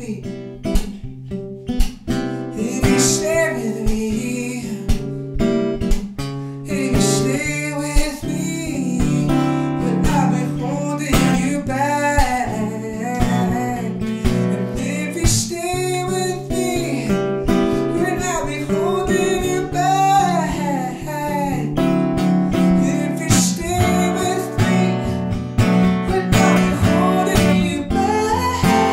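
A man singing over a strummed acoustic guitar, his voice sliding and wavering in long held phrases.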